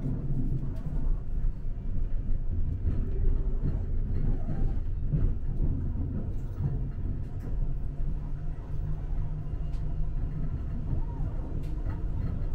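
Brisbane suburban electric train running between stations, heard inside the carriage: a steady low rumble and hum with a few faint clicks scattered through it.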